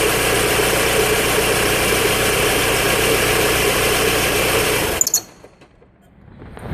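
Ford Focus engine ticking over with a loud, steady noise that remains after a new alternator belt and tensioner were fitted. The sound stops abruptly about five seconds in as the engine is switched off, followed by a couple of clicks.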